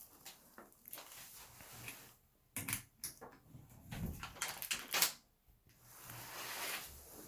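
A few scattered clicks and knocks from handling tools and hardware at a closet door, with a soft hiss of about a second near the end.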